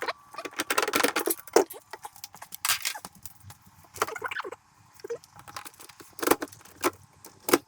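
Irregular clicks, knocks and rattles of plastic refrigerator parts being handled and pulled out.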